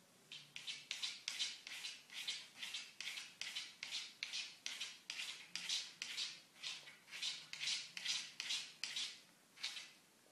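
An animal chewing dry kibble, a rhythmic crunching about two to three times a second, pausing briefly near the end before one last crunch.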